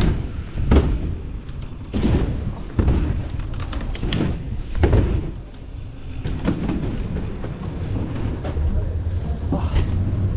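Mountain bike riding the ramps of an indoor bike hall: a series of dull, irregular thumps from the tyres and bike hitting the wooden ramps and landings, over a steady low rumble.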